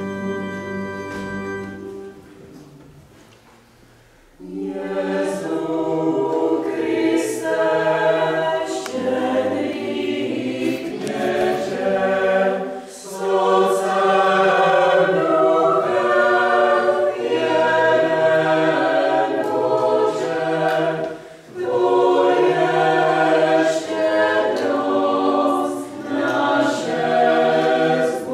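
A held pipe organ chord ends about two seconds in; after a short pause a small choir of young women starts singing unaccompanied, in phrases with brief breaks for breath.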